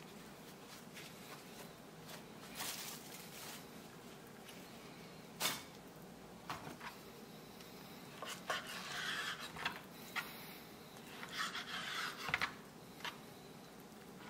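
Plastic wrap and paper towel rustling as raw halibut is unwrapped, then a kitchen knife slicing a halibut fillet into strips on a wooden cutting board, with short bursts of cutting and light taps of the blade on the board.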